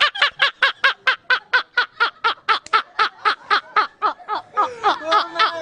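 A person laughing hard in a long, fast, even run of high-pitched ha-ha pulses, about seven a second, which grows looser and wavering near the end.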